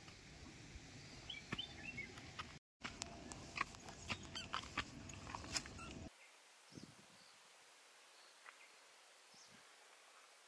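Faint outdoor ambience with a few short bird chirps and scattered clicks and crunches. About six seconds in it drops to a quieter, even hiss.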